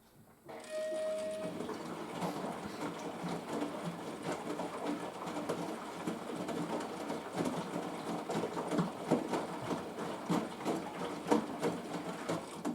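Washing machine drum starting to turn during a rinse, with a brief steady tone about half a second in, then irregular sloshing and clunking of wet laundry and water tumbling that stops right at the end.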